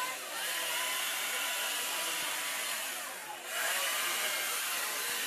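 Chainsaw running at high revs, carving a block of ice, with a steady hiss of cutting. The engine eases off briefly twice, near the start and a little past the middle, then picks back up.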